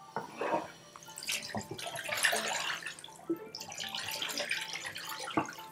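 Tap water running and splashing into a stainless steel pot of blanched chicken feet and pork shin as they are rinsed in the sink, with a few sharp knocks.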